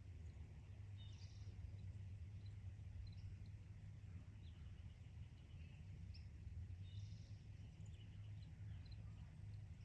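Faint, scattered high chirps of small birds over a steady low hum of outdoor background noise.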